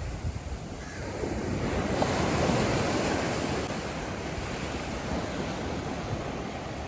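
Sea waves washing onto the shore, one wave swelling about two seconds in and slowly draining away, with wind rumbling on the microphone.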